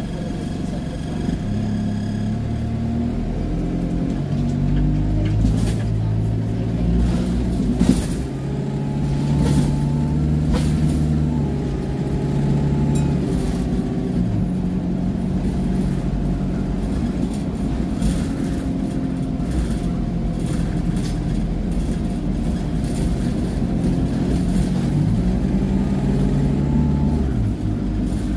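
Alexander Dennis E200 Dart bus's diesel engine, heard from inside the passenger saloon, pulling under load with its pitch rising and then dropping in steps as the automatic gearbox changes up, about a third and near the end of the way through. Sharp interior rattles and clicks sound over it.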